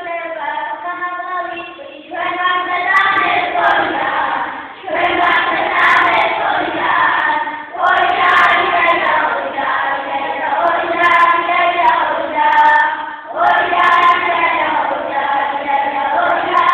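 A group of young children singing together, in several phrases with brief pauses for breath between them.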